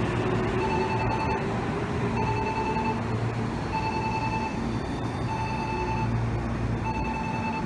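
A repeating electronic two-tone chime, a higher tone then a lower tone, each about three quarters of a second long and cycling roughly every second and a half, over the low rumble of a train.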